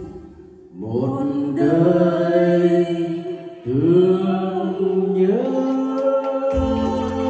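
A man and a woman singing a duet into microphones over a karaoke backing track, holding long notes that scoop upward into each new pitch. The backing almost drops out at the start, and the full beat with drums comes back near the end.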